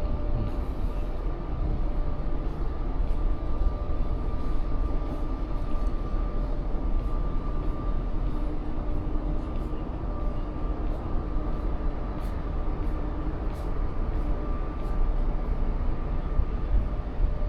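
Steady machinery drone of a cruise ship: a low rumble with a constant hum, and faint light clicks now and then.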